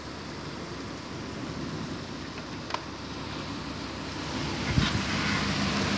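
Heavy rain hissing steadily, with a NABI 416 transit bus's diesel engine running underneath. About four and a half seconds in there is a thump, and the engine grows louder as the bus pulls away while the rain hiss swells.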